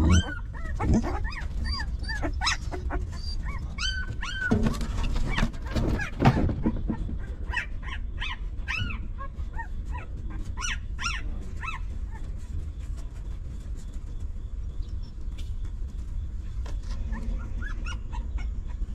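Newborn puppies whimpering and squeaking in short, high cries that rise and fall, several a second at first and thinning out after about eleven seconds. A few dull knocks come in the first seven seconds, over a steady low rumble.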